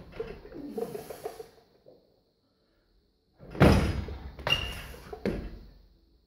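Barbell split jerk: a loud thud as the lifter's feet land in the split with the loaded bar overhead, about three and a half seconds in, followed by two lighter thuds as he steps his feet back together.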